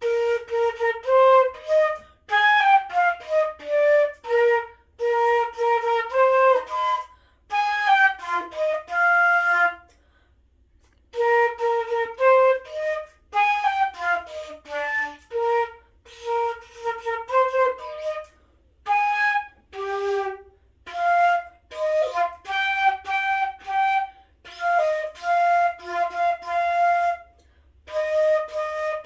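Solo flute playing a simple tune, unaccompanied, in short phrases of separate notes with brief pauses between them and a longer pause about ten seconds in.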